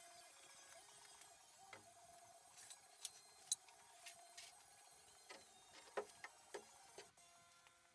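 Very quiet: faint footsteps and scattered small clicks and taps on a concrete workshop floor, over a low steady hum.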